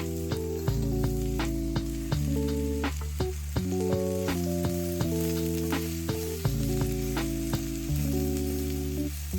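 Background music with a deep bass line and chords changing every second or so, over food sizzling and frying in a pan as potato fried rice cooks, with regular sharp clicks.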